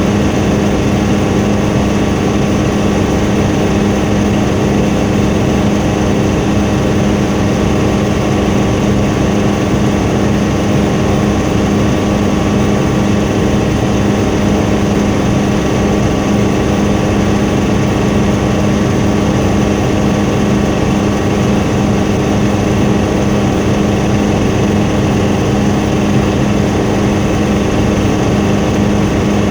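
Helicopter in flight: a loud, unchanging drone of engine and rotors with a steady hum running through it.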